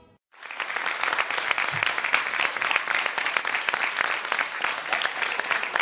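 Studio audience applauding, starting just after a brief silence at the very beginning.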